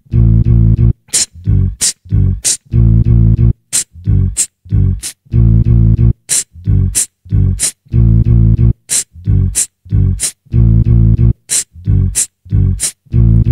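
Beatbox loops playing back from a Boss RC-505 loop station: deep, pitched bass notes in a repeating rhythm, with sharp hi-hat-like clicks over them from about a second in.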